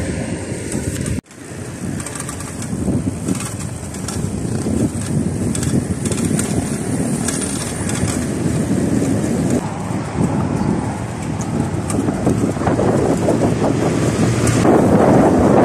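Wind rushing over a handlebar-mounted camera's microphone, with road noise, as a bicycle rolls along a paved road. The sound cuts out for an instant about a second in, then runs on steadily.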